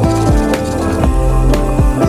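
Background music with a steady beat: held notes over a repeating drum pattern.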